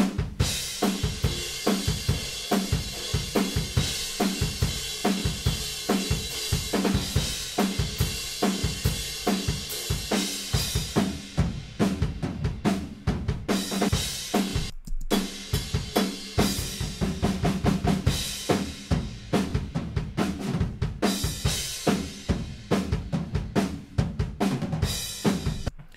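Raw room-microphone tracks of a rock drum kit played back: kick, snare and cymbals in a steady rhythm with a lot of room sound, big-sounding. The drumming breaks off for a moment about fifteen seconds in.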